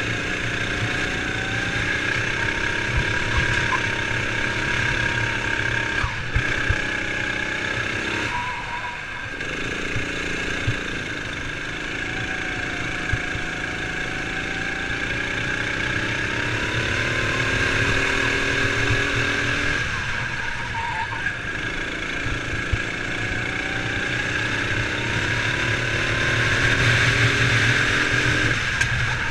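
Sodi RX7 rental kart engine heard from on board, running hard through a lap: its pitch climbs steadily under acceleration, then drops sharply several times as the driver lifts off for corners.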